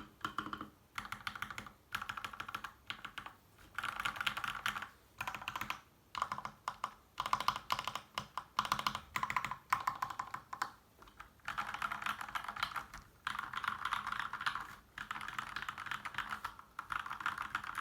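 Typing on an LK67 mechanical keyboard with its stock switches and Akko Neon keycaps: fast, dense keystrokes in runs of a second or two, broken by brief pauses.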